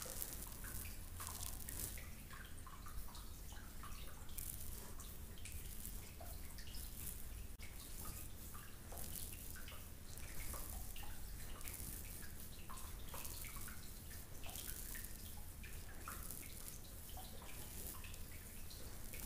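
Fingers rubbing and kneading through long hair against the scalp, giving a soft, crackling rustle in short irregular strokes. Scattered small water drips plink through it.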